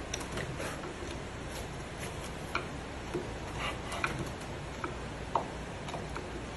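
Narrow chisel paring out a small recess in a hardwood board: a scatter of sharp, irregular clicks and ticks as the blade bites and pries out wood fibres, the loudest about five seconds in.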